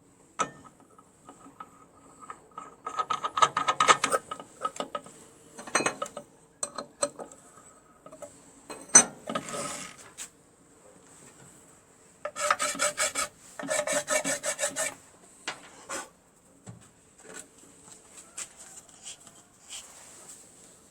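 Hand filing, in several bursts of quick back-and-forth file strokes, the longest two near the start and about twelve seconds in. It is most likely metal being filed while the homemade quick-release grinder nut is finished.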